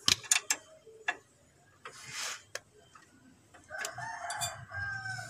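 A rooster crowing once, a long call beginning about four seconds in. Before it come a few sharp clicks and a short hiss.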